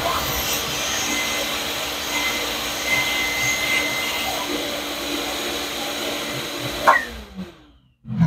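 Shop vac running steadily, its hose held in an opening of the engine's cooling passages to suck out old coolant and sludge. About seven seconds in it is switched off with a click and whines down, and a thump follows at the end.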